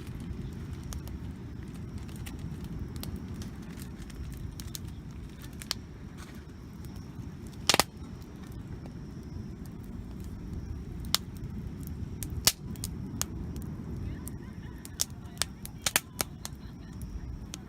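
Wood campfire crackling, with scattered sharp pops over a low steady rumble; a loud double pop about eight seconds in.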